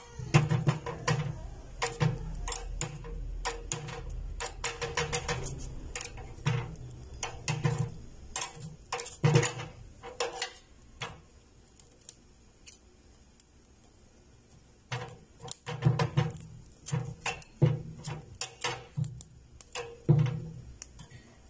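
Irregular metallic clicks and knocks of a metal cooking utensil against a gas stove's iron grate as a head of garlic is turned and charred in the burner flame. The clicking stops for a few seconds past the middle, then starts again.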